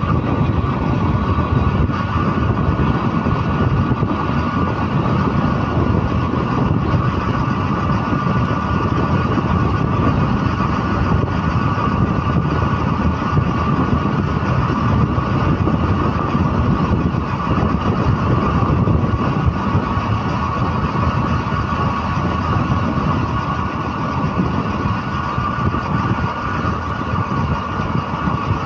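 Steady engine and road noise heard from on board a moving vehicle, with a constant high whine running through it.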